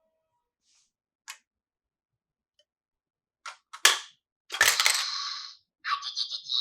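Small plastic toy pieces and packaging being handled. A few sharp clicks and clacks come first, then a rustling scrape of about a second, and near the end a quick run of clicks.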